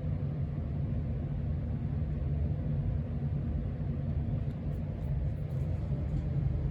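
Casablanca Stealth ceiling fan running on its lowest speed: a steady low rumble and hum.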